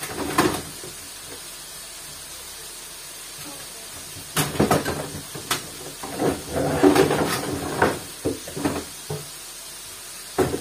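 Scattered sharp knocks and clicks of things being handled in a kitchen, with a busier run of clatter a little past the middle.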